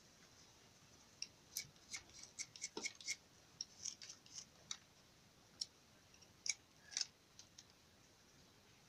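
Faint, irregular run of small sharp snips and clicks, the loudest two a little before and at about seven seconds in, from hand work trimming the small tufts that go into a turned wooden nambu bird call.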